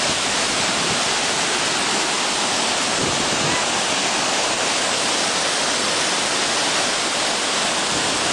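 Waterfall pouring into a rocky pool: a loud, steady rush of falling water.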